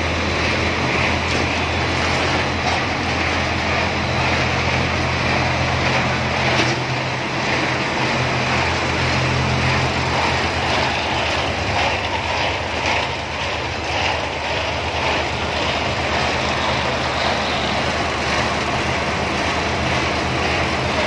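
Snack food production line running: a steady low motor hum with even mechanical noise from the conveyors and processing machinery.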